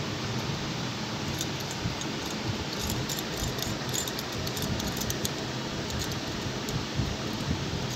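Small metallic clicks and clinks of a screw and washer being turned by hand while a hemming folder is fitted to an industrial sewing machine's bed, over a steady low hum.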